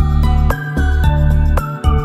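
Background music: a gentle instrumental track with bright chiming notes over a steady, pulsing bass.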